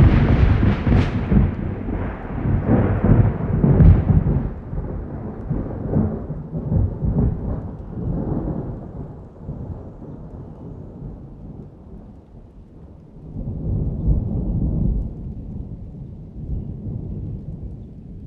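Thunderstorm: a sharp, crackling thunderclap breaks in, then rolls into a long low rumble that slowly fades. A second swell of rumbling comes about thirteen seconds in, with rain falling throughout.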